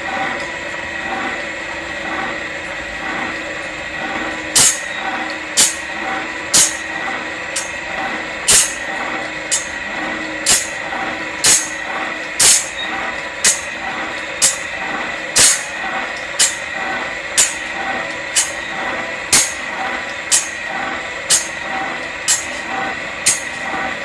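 Circular-blade sharpening machine running: a steady motor hum with a constant high whine and a regular mechanical pulse. About four and a half seconds in, short sharp grinding hisses start and repeat about once a second, one stroke per tooth.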